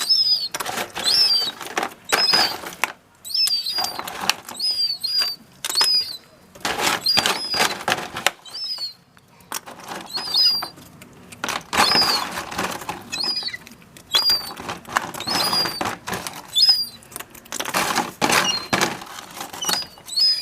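Young gulls' begging calls: a short, high, thin squeal repeated about once a second, with a few gaps. Loud noisy bursts, like rustling or flapping, come between the calls.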